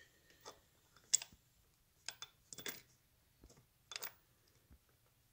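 Light, scattered clicks and taps of a screwdriver and small screws against metal parts, about half a dozen, the loudest about a second in and a quick cluster just past halfway.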